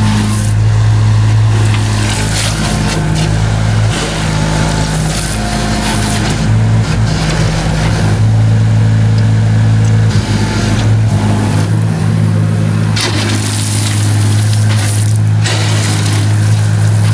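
A JCB mini excavator's engine runs steadily, its note dipping a couple of times as it works. The steel bucket scrapes and pushes loose gravel over the ground.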